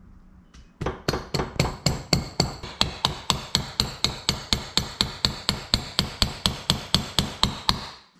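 A steady run of sharp metallic strikes, about four a second, each ringing briefly. It starts about a second in and stops just before the end.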